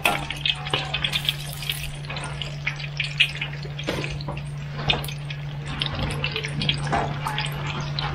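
Boiled duck eggs deep-frying in a wok of hot oil: irregular sizzling crackles and pops, over a steady low hum.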